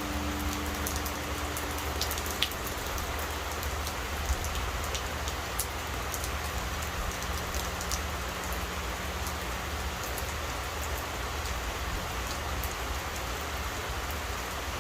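Steady rain falling, with scattered sharp ticks of individual drops landing close by. A large Buddhist temple bell's deep hum dies away in the first two seconds, and a faint low tone lingers until about ten seconds in.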